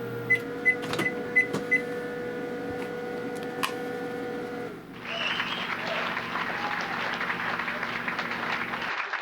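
Panasonic inverter microwave running with a steady hum, with five quick short beeps near the start. About five seconds in the hum cuts off and applause takes over.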